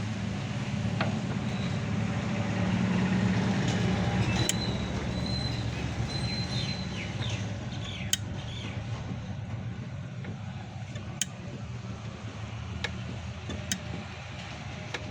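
Steady low mechanical hum in the background, with a few sharp clicks of metal parts being handled as a spring lock is fitted onto a washing machine's clutch (gear) assembly.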